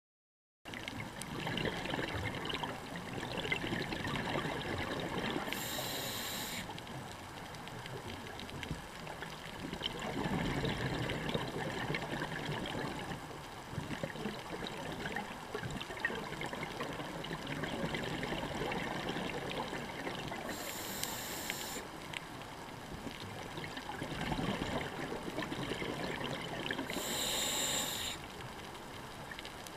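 Underwater sound of a scuba diver breathing through a regulator: exhaled bubbles gurgle and rumble in slow swells, with three short high hisses.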